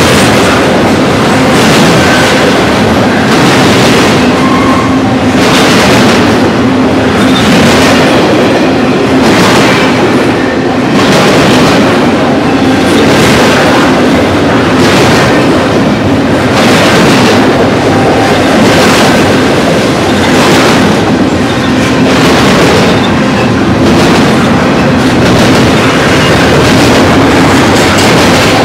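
Loud rolling noise of a BNSF double-stack intermodal freight train's container cars passing close by, steel wheels on rail clattering about once a second as the wheel sets go over the track.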